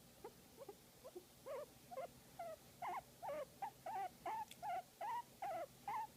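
Guinea pig giving a rapid run of short, high squeaking calls, about three a second, each bending in pitch. The squeaks get louder about a second and a half in.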